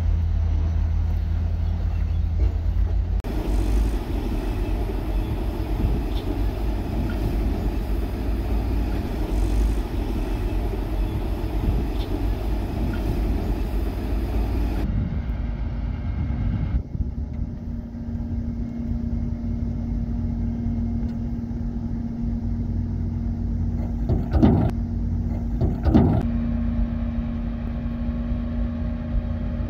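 Diesel engines of heavy earthmoving machinery running at a steady low rumble, the sound changing abruptly twice. Two short sharp knocks come near the end.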